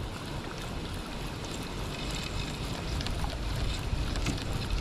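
Seaside ambience: wind rumbling on the microphone over a steady hiss of water in shallows, with a few faint light clicks near the end.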